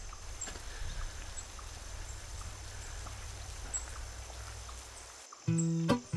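Outdoor ambience during a walk in light rain: a steady low wind rumble on the microphone with a faint hiss and a few soft scattered ticks. About five seconds in it cuts out, and acoustic guitar music starts.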